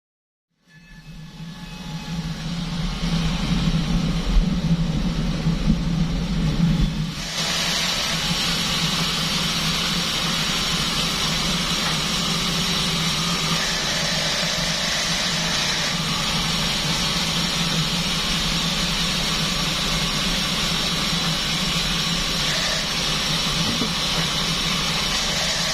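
Band sawmill machine running: a low hum builds up over the first couple of seconds, and about seven seconds in a steady high hiss joins it and holds evenly.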